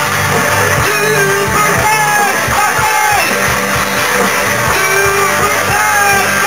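Rock song played on two electric guitars through an amplifier, with a voice singing along into a microphone.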